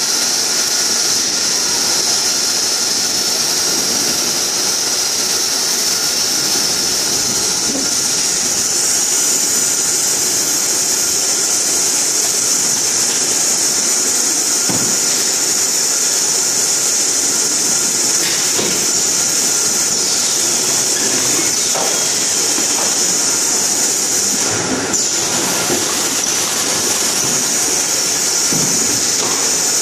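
Bottling and automatic case-packing line machinery running: a loud, steady mechanical din with a high hiss over it, and faint knocks now and then.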